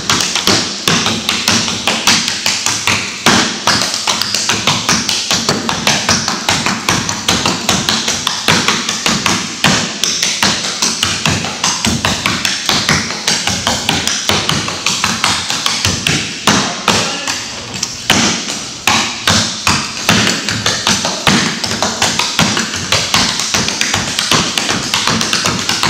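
Clogging shoes with taps striking a wooden dance floor in fast, continuous rhythmic steps, an a cappella clogging routine danced without music.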